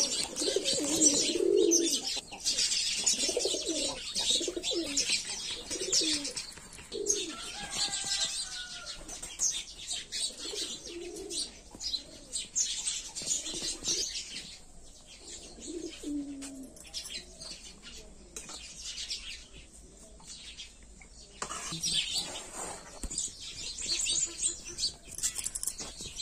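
Pigeons or doves cooing over and over in low, rounded calls, most often in the first few seconds and more sparsely after. Under them runs a dry, scratchy rustling, strongest at the start and again near the end.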